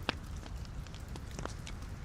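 Wood fire burning in a fireplace: a low steady rush of flame with sharp crackles and pops from the burning logs, a strong pop just after the start and another about a second and a half in.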